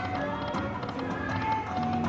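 Cash Explosion slot machine playing its free-spins bonus music: a run of short electronic notes at changing pitches, with light ticks as the reels spin.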